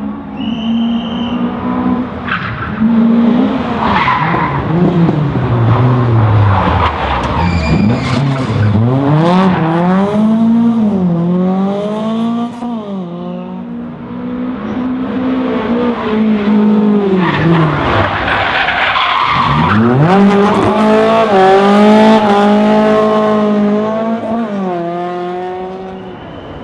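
Historic rally cars at full throttle on a tarmac special stage, the engine note dropping as they brake and then climbing through the gears with each shift. Tyre squeal comes through under the engines. Two cars come through, one after the other.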